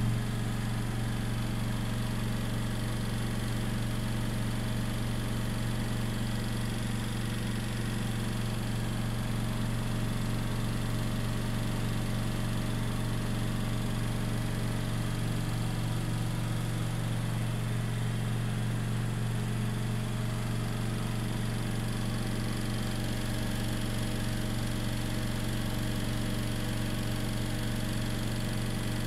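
A motor running steadily at constant speed: an even, low hum with no change in pitch or level.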